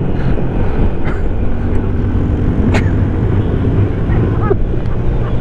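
Small 125cc motorcycle engine running steadily on the move, heard from the rider's own bike. A single sharp click about halfway through.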